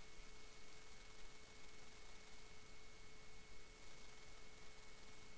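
Faint room tone: a steady low hiss with two faint steady hum tones, one lower and one higher.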